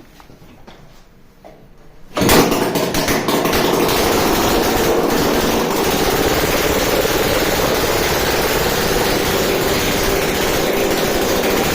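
Freshly assembled Suzuki Max 200 twin-cylinder two-stroke engine catching on a kick start about two seconds in, then running steadily on its first start.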